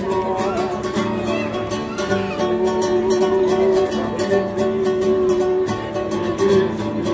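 Acoustic guitar strummed in a steady rhythm, chords ringing on.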